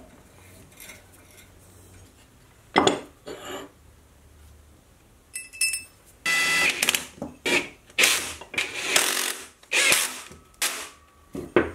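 Cordless drill-driver running in a string of short bursts, driving socket-head cap screws into a steel frame. Before it come a sharp knock and a light metallic clink as the parts and screws are handled.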